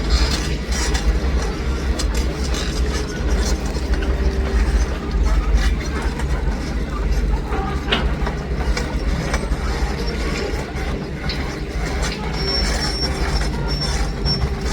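Komatsu PC200 hydraulic excavator running, its diesel engine giving a steady deep rumble, with scattered metallic clanks and a thin high squeal near the end.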